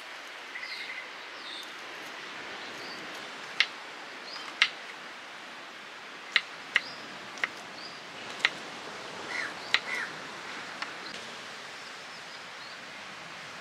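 Outdoor ambience with a steady hiss, short bird chirps scattered throughout, and about eight sharp clicks or taps in the middle of the stretch, the clicks being the loudest sounds.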